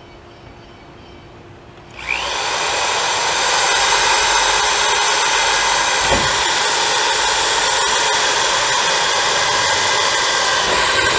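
Electric drill starting about two seconds in, whining up to speed and then running steadily, drilling a starter hole through the door's two layers of sheet metal.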